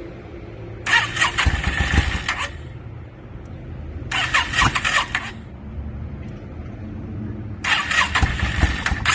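2002 Yamaha V-Star 650's air-cooled V-twin being cranked on its electric starter in three bursts of about a second and a half each, about a second, four seconds and near eight seconds in.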